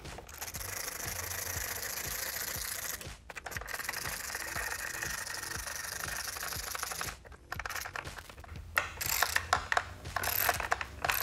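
Hand ratchet with an extension backing out screws: fast continuous ratchet-pawl clicking for several seconds, with a brief break near three seconds. The clicking eases off for a moment, then comes back as quicker, separate clicks near the end.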